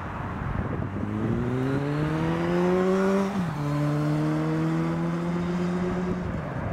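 Motorcycle accelerating past: its engine note climbs for about two seconds, drops sharply at a gear change, then holds steady for about three seconds before dying away, over steady traffic noise.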